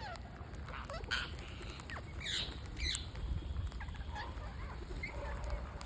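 Green parrots making short squawks and chirps while feeding, several calls a few at a time with thin clicks between them.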